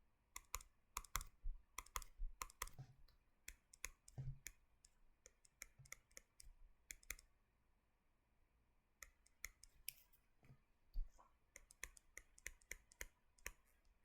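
Faint, irregular light clicks and taps coming in quick runs, with a pause of about two seconds around the middle.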